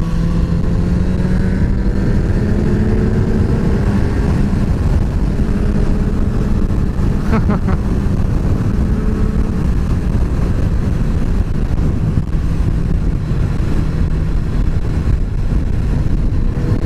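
Motorcycle engine under way, its pitch rising gently over the first few seconds as it pulls, then holding steady, with heavy wind rumble on the helmet microphone.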